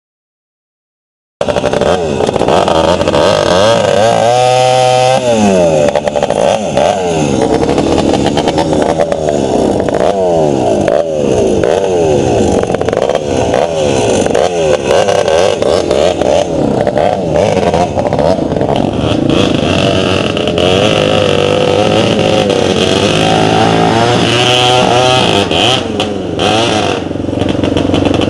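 Off-road motorcycle engine revving up and down over and over as the throttle is opened and closed while riding rough ground, starting about a second in after a short silence.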